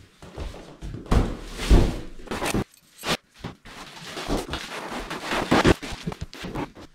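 Cardboard box set down with heavy thumps on a wooden floor and its flaps knocked open, then a stretch of crackling, rustling plastic wrapping as the trainer inside is pulled out.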